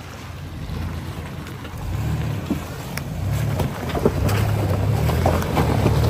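A compact pickup truck's engine running with a low rumble that gets steadily louder as it drives closer. Sharp clicks and knocks from the tyres working over rocks and snow come more often near the end.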